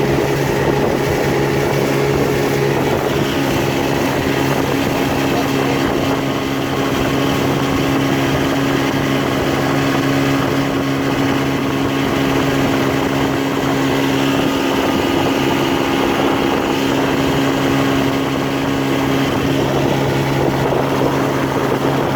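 Boat motor running at a steady speed while under way, with a constant hum over water and wind noise.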